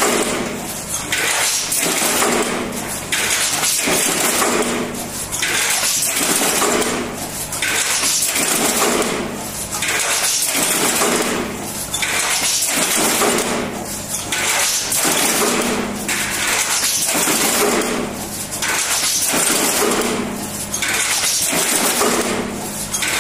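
Tin box stamping line running: power presses and two-axis transfer robots working in a steady cycle about every two seconds, each cycle a burst of metallic clatter and noise, over a steady machine hum.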